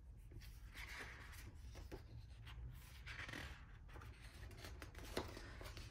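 Pages of a hardcover picture book being turned by hand. Faint paper swishes come about a second in and again about three seconds in, with a few light taps.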